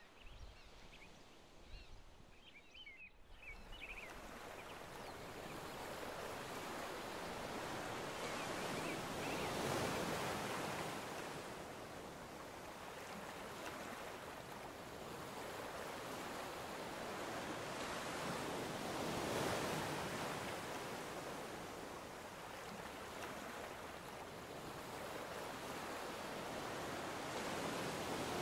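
Ocean surf washing onto the beach, a steady rush that swells and eases about every nine seconds. A few short high chirps come in the first seconds, before the surf rises.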